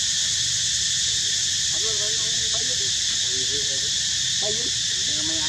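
Steady, loud, high insect drone, an unbroken chorus like cicadas or crickets, with faint wavering voices coming and going in the background several times.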